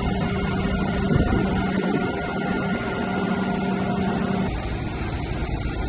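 An engine running steadily, with a low even hum; the sound changes about four and a half seconds in.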